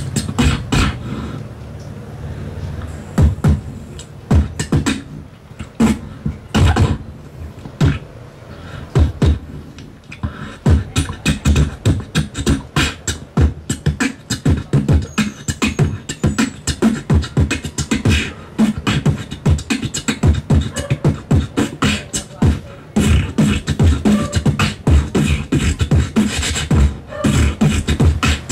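Solo human beatboxing into a handheld microphone held against the mouth: a fast run of mouth-made kick, snare and hi-hat sounds. It starts abruptly over a low steady bass note that lasts about two seconds.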